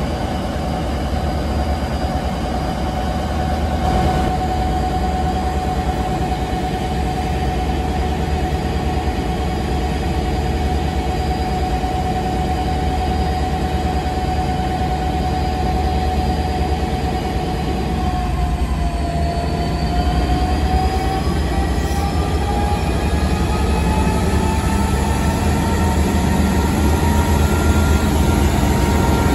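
Class 201 diesel locomotive's two-stroke V12 diesel engine running with a steady rumble and whine. About two-thirds of the way through, the note dips briefly and then rises steadily as the engine powers up to pull the train away.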